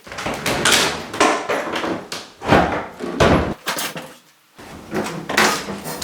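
A string of wooden knocks and bangs, the loudest about two and a half and three and a half seconds in, from kitchen cabinets being knocked and pulled apart during demolition.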